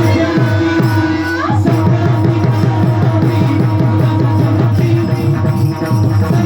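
Music with a fast, even drum beat and jingling percussion over steady held tones, with one rising slide about a second and a half in.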